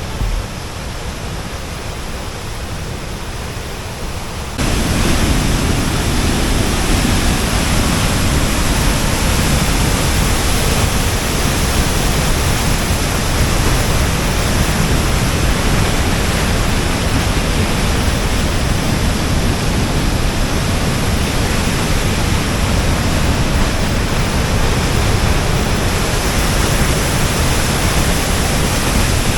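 Waterfall: a steady rush of falling water that jumps louder about four and a half seconds in.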